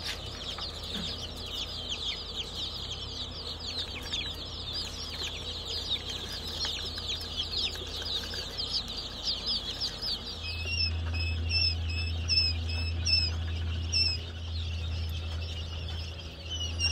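A crowd of chicks peeping, a dense chorus of many short, high, falling peeps. About ten seconds in it thins to fewer, more regular peeps over a steady low hum.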